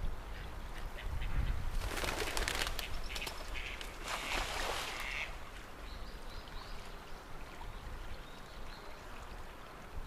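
A pigeon's wings clattering as it takes off: a dense run of quick flaps about two seconds in, then a second burst about four seconds in, over the steady low rush of a river.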